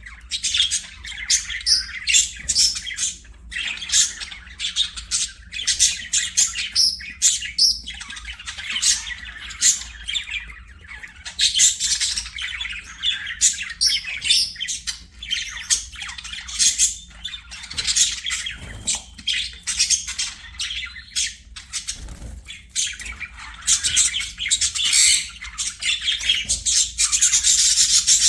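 Budgerigars chattering and warbling, a continuous jumble of high chirps, squawks and clicks from several birds.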